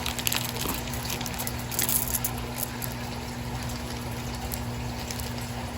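Steady low electrical hum with an even hiss, and a few faint light clicks and rustles near the start from bead packaging being handled.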